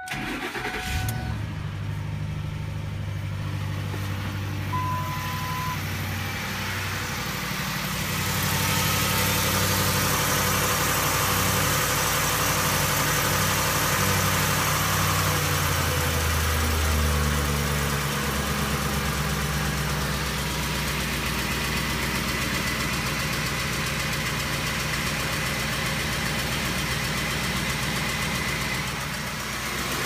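Ford Triton 5.4-litre V8 being started, then running at idle with a ticking, uneven beat. The ticking and misfire are the sign of failed ignition coils.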